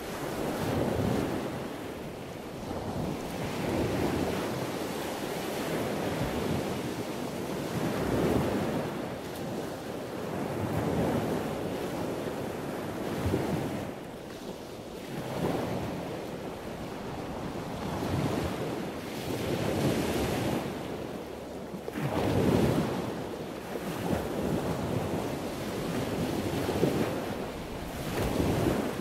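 Ocean surf: waves washing in and drawing back in slow swells every few seconds.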